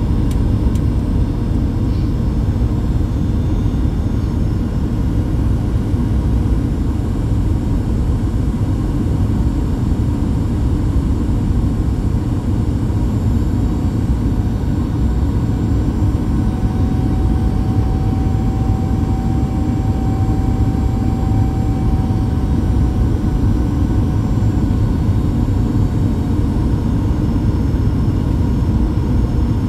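Steady cabin noise inside a Boeing 737 MAX 8 in flight: the low rumble of airflow and the CFM LEAP-1B engines, with faint steady tones on top. A faint higher tone joins for several seconds midway.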